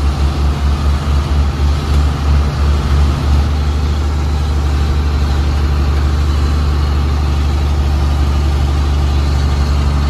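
John Deere 4640 tractor's six-cylinder diesel engine running under load while towing a water wagon, heard from inside the cab as a loud, low drone. It pulses for the first three seconds or so, then holds steadier.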